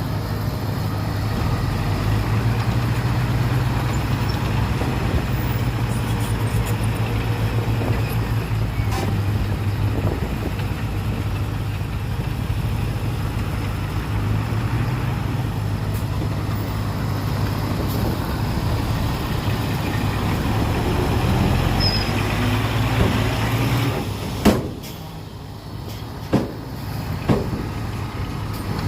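A heavy diesel engine of earth-moving equipment running steadily with a low drone. Near the end a sharp knock comes and the engine sound drops away, followed by two more knocks before it comes back.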